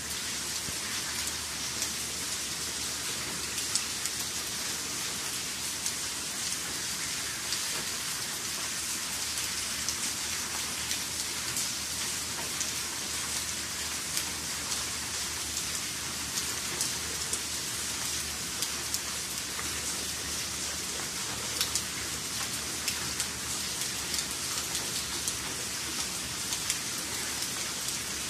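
Steady rain falling on wet paving: a constant hiss with frequent sharp drop impacts scattered through it.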